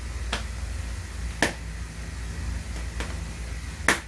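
Three sharp plastic clicks, spaced about a second or more apart, from a lotion bottle's green cap and pump being handled, over a steady low hum.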